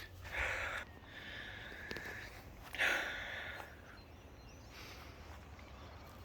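A person sniffling: two short nasal sniffs, about two and a half seconds apart, over faint background noise.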